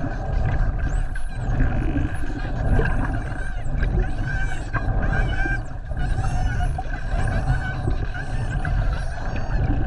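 Spinner dolphins whistling underwater: a run of thin rising and falling whistles, thickest in the second half, over a steady low underwater rumble.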